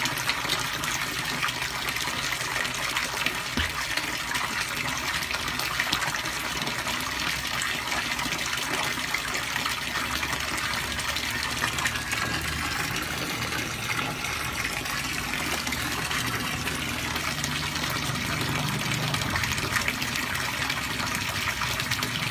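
Steady splashing and gushing water in a koi pond, with many small sharp splashes as a crowd of koi thrash at the surface around a feeding hand.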